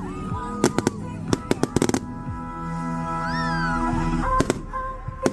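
Fireworks popping and crackling in sharp, irregular bangs over background music with long held notes. A short squeal rises and falls about three seconds in.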